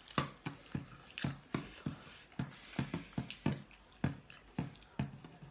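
Close-up chewing and mouth sounds of people eating McDonald's fries and a cheeseburger: a steady run of short sharp clicks, about three a second.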